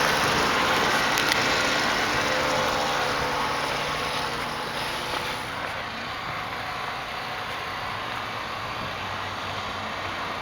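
Steady rushing vehicle noise that fades over the first half and then holds at a lower level.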